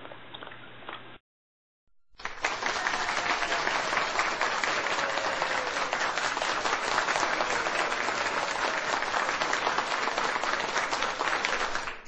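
Applause from a crowd, many hands clapping in a dense, even patter that starts about two seconds in after a brief silence and holds steady.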